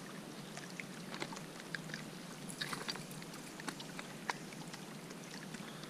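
Footsteps over rock and loose stones: shoes scuffing and crunching, faint, with scattered small clicks and a short cluster of them about two and a half seconds in.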